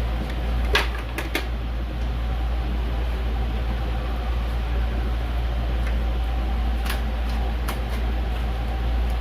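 Steady low hum, with a handful of light clicks and taps from computer parts being handled: three close together about a second in and two more around seven seconds.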